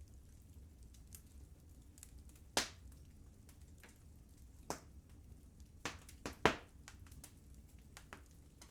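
Wood fire crackling in a fireplace: scattered sharp pops, the loudest about two and a half seconds in and a cluster of three near six seconds, over the fire's low steady rumble.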